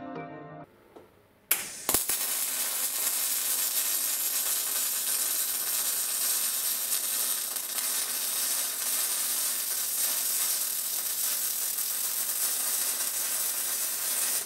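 MIG welder arc on steel plate: the arc strikes with a sharp crack about a second and a half in, then runs as a steady, dense crackle while a bead is laid, stopping abruptly at the very end.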